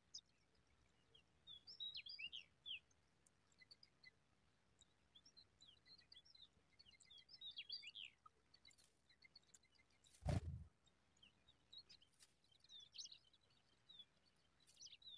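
Faint, high, thin chirping from zitting cisticola nestlings begging at the nest, coming in short clusters of rapid notes. A single dull thump sounds a little past halfway through.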